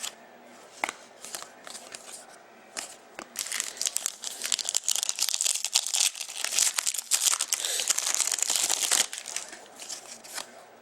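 Trading-card pack wrapper crinkling as it is torn open and handled: a few light clicks at first, then a dense crackle lasting about five seconds that stops suddenly.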